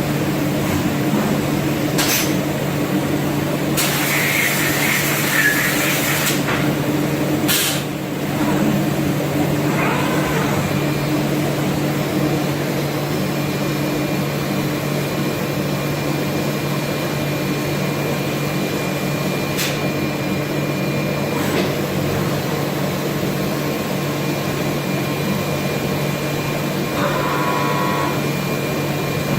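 HOMAG BOF 41/K woodworking CNC machining center running with a steady machine hum, broken in the first eight seconds by a few noisy bursts, the longest lasting about two and a half seconds.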